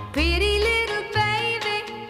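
Background pop song: a singer's voice slides up into a held note just after the start, over bass and backing instruments.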